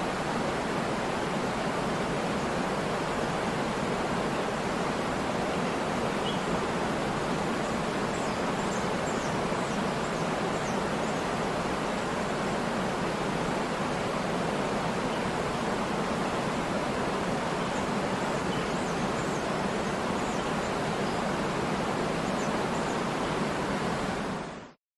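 Waterfall: a steady, dense rush of falling water, fading out quickly near the end.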